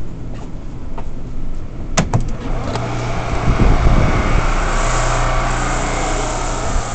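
R179 subway car running on the A line: wheels clicking over rail joints, the sharpest click about two seconds in, then a loud rush of wheel-and-rail noise with a steady low motor hum.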